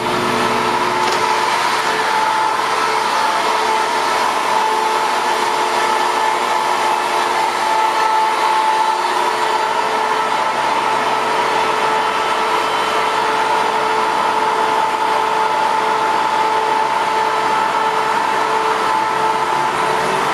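Train standing at the station platform, its engine and on-board equipment running with a steady hum and a constant whine.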